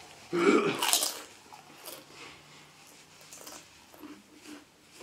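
A man blowing his nose hard into a paper tissue: one loud honking blow lasting about a second, shortly after the start.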